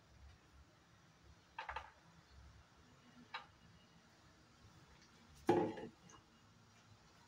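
A few soft clinks and clatters of a bowl against a steel plate as whole chana dal grains are tipped and scraped out of it, with one louder knock about five and a half seconds in.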